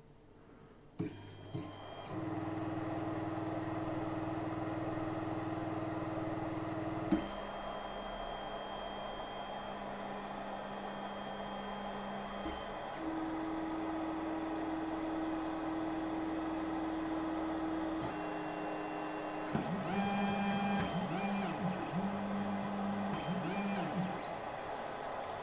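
Flowfon P20 3D printer's stepper motors running through automatic bed leveling: a steady whine that changes pitch each time a different axis moves, then near the end a string of short moves with rising and falling whines as the head steps between probe points. A couple of clicks about a second in, where the run starts.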